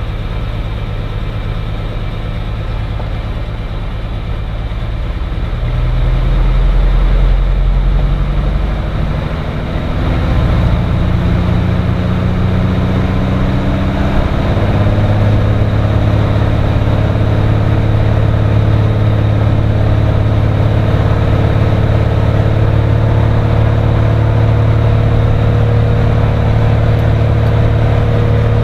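Cirrus SR20's piston engine and propeller running, the engine speed and pitch stepping up over the first half, with a brief dip, then holding steady at higher power.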